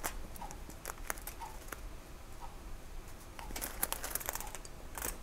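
Light scattered clicks and scrapes of a metal seal pick working a rubber oil seal out of a snowblower's aluminium wormcase housing, the clicks coming closer together a little past the middle.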